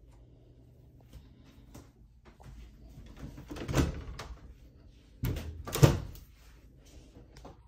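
Wooden cabinet doors pulled open one after the other. There is a knock about four seconds in, then a louder pair of knocks about a second and a half later.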